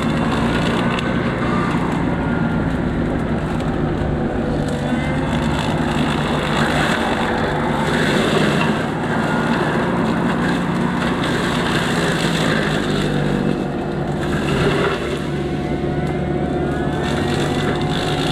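Small excavator running a 42-inch Bushmaster brush cutter with bush hog blades while mowing brush: a steady engine drone with faint whines that rise and fall.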